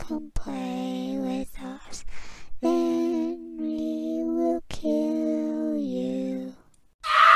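A voice singing a slow, lullaby-like song with long drawn-out notes, broken by two sharp clicks. It stops shortly before the end, and a loud, different noisy sound begins.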